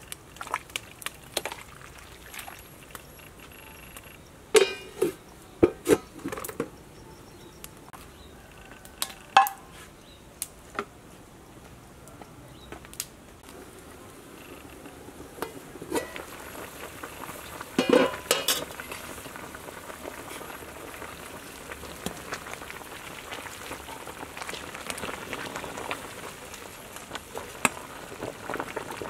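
A large stainless steel soup pot over a wood fire: scattered sharp metal clanks of lid and ladle against the pot, the loudest a ringing clatter about two-thirds of the way through. Under them the vegetable soup comes to the boil, its steady bubbling growing louder over the second half while a ladle stirs it.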